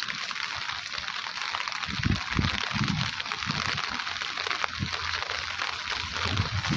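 Steady hiss of rain falling. Muffled low voices rise over it about two seconds in and again near the end.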